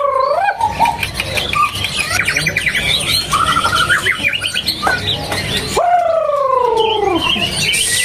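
Caged songbirds singing, among them male white-rumped shamas (murai batu): a mix of chirps, quick trills and whistles, with one long falling whistle a little after the middle.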